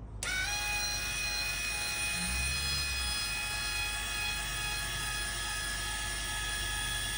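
Original Eco-Worthy 12-inch, 12 V linear actuator (1500 N, 6 mm/s) running as it drives the tilt of a solar tracker panel: its motor and gearbox give a steady, really noisy whine with many overtones, switching on abruptly just after the start.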